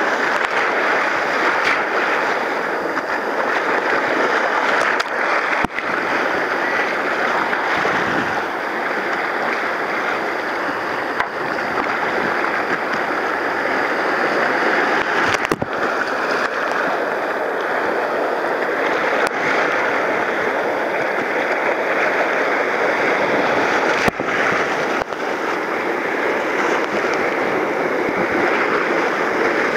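Whitewater rapids of a mountain river at high water, heard from a kayak's deck: a loud, steady rush of churning water splashing over the boat, broken by a few brief knocks.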